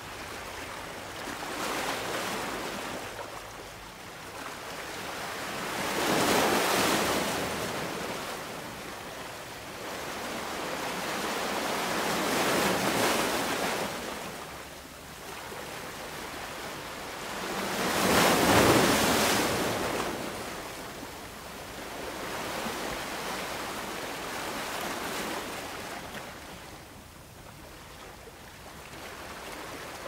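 Ocean waves breaking on a beach, the surf swelling and fading in slow surges about every five or six seconds, the loudest break about two-thirds of the way through.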